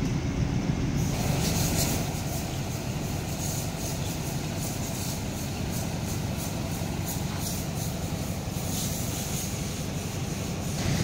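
Diesel bus engine idling: a steady low rumble.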